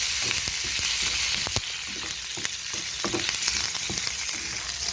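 Curry leaves sizzling as they fry in a little hot oil in a kadai, with a spoon clicking and scraping against the pan as they are stirred.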